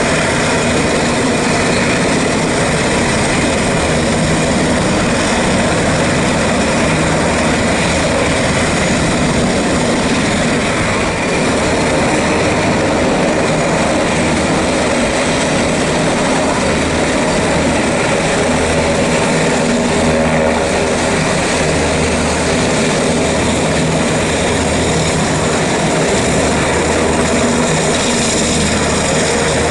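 Sikorsky Black Hawk military helicopters taxiing on the ground, their turbine engines and rotors running loud and steady, with a low rotor throb underneath.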